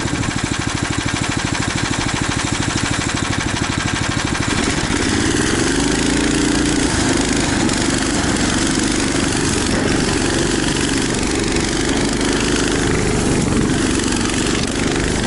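Small engine of a motorized snow tow unit (motor-dog) running at a low, even chug, then revved up about four and a half seconds in and held at high revs under load as it climbs a steep slope.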